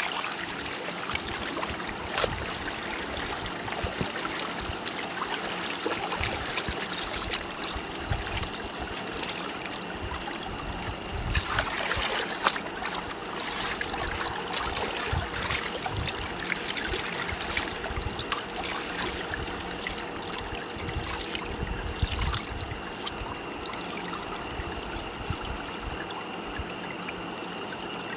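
Shallow stream running over a pebbly bed: a steady rush of flowing water, a little louder about eleven to thirteen seconds in.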